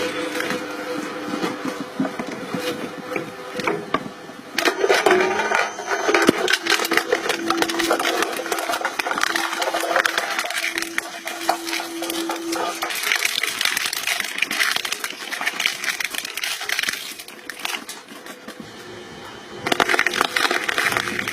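Objects cracking and splintering as a crushing machine breaks them. A dense crackle of snaps runs throughout, with a steady hum in the middle and a brief quieter stretch near the end.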